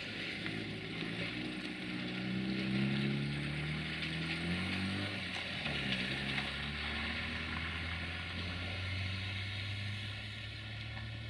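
Two coupled Siemens Desiro VT642 diesel multiple units passing and pulling away: diesel engine drone whose pitch falls as the train goes by, over a steady clatter of wheels on the rails.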